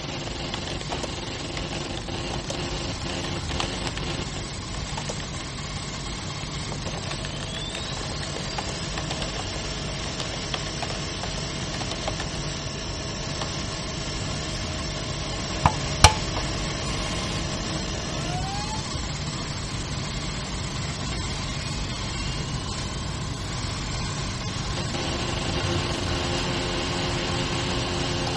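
Steady machine hum of a mainframe computer room, running equipment and cooling fans, with a few short rising tones and two sharp clicks close together about halfway through.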